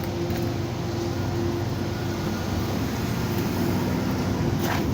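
Steady mechanical hum with a low drone, with a brief click near the end.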